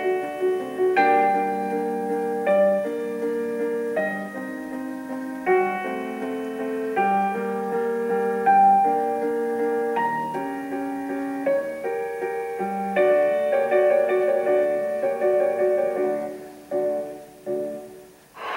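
Piano music: a slow run of held chords and notes that fades out near the end.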